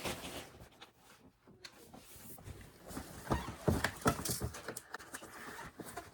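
A package being opened by hand: rustling wrapping with a run of soft knocks and clicks from about two seconds in, as the box and its contents are handled.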